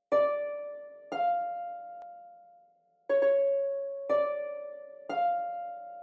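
Music: a harp-like plucked tone plays five single notes, each starting sharply and ringing out as it fades. The notes move between two neighbouring pitches, about a second apart, with a longer pause after the second note.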